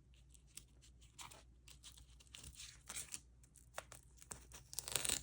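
Faint rustling and crinkling with scattered small clicks from the cash envelopes and binder being handled.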